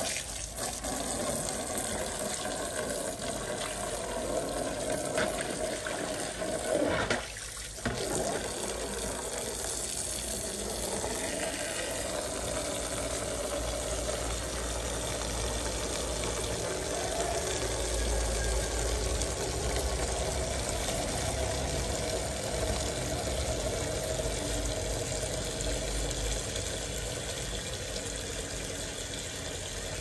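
Water running from an outdoor tap and pouring into a plastic basin: a steady splashing flow that drops out briefly about seven seconds in.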